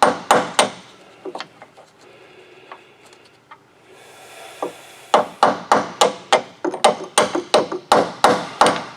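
Hammer tapping a socket onto a rusted bolt head. Two strikes at the start, then after a lull a run of about a dozen quick, evenly spaced strikes from about five seconds in.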